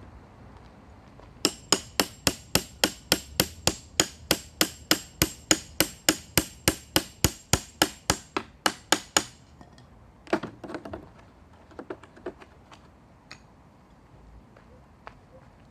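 Claw hammer striking a steel floorboard chisel, driving its blade under a pallet board: a fast, steady run of about thirty sharp metallic blows, about three or four a second, that stops about nine seconds in. A few softer knocks and clatter follow as the board is worked loose.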